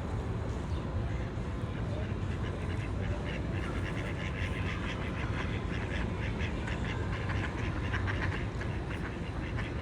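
Ducks quacking in quick, repeated calls, thickest from about three seconds in, over a steady low rumble.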